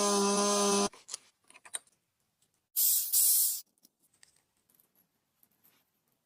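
A pitched hum that cuts off about a second in, followed by a few faint clicks and then two short bursts of hiss, like a spray or a jet of gas.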